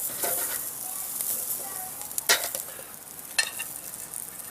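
Asparagus spears sizzling on a hot grill grate, a steady high hiss, with two sharp clicks as spears are set down, one a little past two seconds in and one about a second later.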